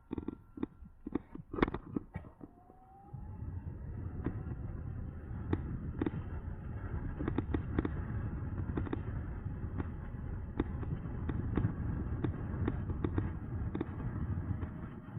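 Riding noise from an electric bike: a steady low rumble of wind and road, with sharp knocks and rattles throughout. The rumble comes in about three seconds in, after a short rising whine.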